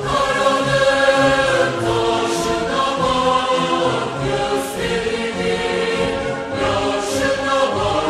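Theme music with a choir singing long held notes that shift every half second or so, with a soft airy swell about every two and a half seconds.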